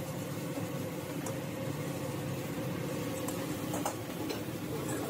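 Steady roar of a commercial wok stove, over which a metal ladle scrapes and taps against a steel wok a few times as fried rice is stirred.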